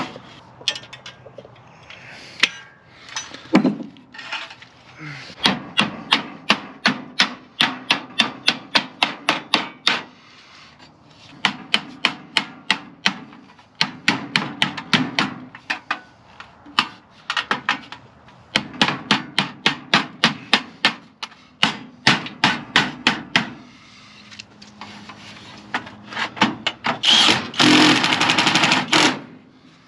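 Hammer blows in quick runs of about four strikes a second, stopping and starting several times. Near the end there is a louder noisy burst lasting about two seconds.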